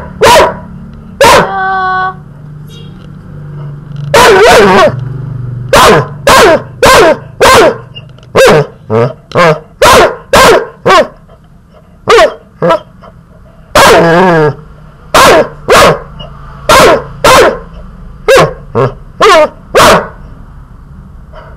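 Golden retriever puppy barking repeatedly at close range: over twenty short barks, roughly one or two a second, with a few drawn out into longer, wavering yelps.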